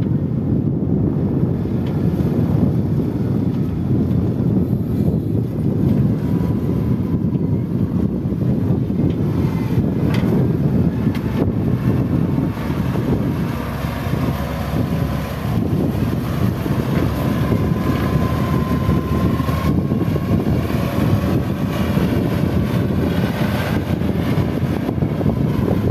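XGMA wheel loader's diesel engine running steadily under load as the machine drives and pushes into sand with its bucket, with a faint high whine through the middle and latter part. Wind buffets the microphone.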